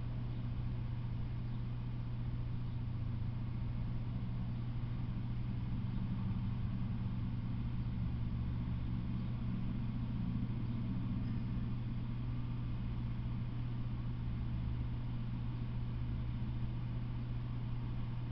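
A steady low hum, with a low rumble beneath it that swells slightly about halfway through.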